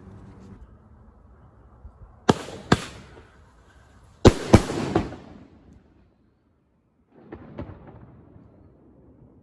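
Homemade fireworks exploding: two loud, sharp bangs about two seconds in, then three more in quick succession about four seconds in, each trailing off in echo. A fainter bang follows near the end.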